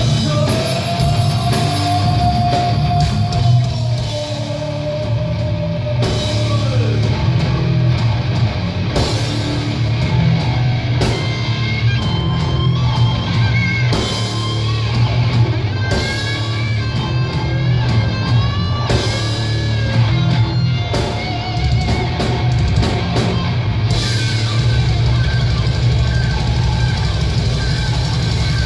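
Live rock band playing: electric guitars, bass and drum kit, with a lead line of long held notes that waver and bend in pitch.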